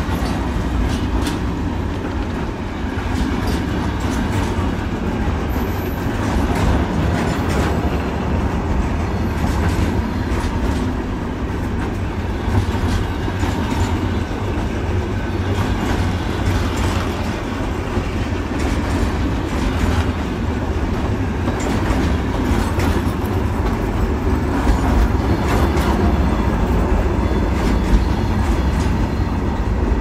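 Loaded BOMN flat wagons of a freight train rolling past close by: a steady rumble of wheels on rail with irregular clacks as the wheels cross rail joints.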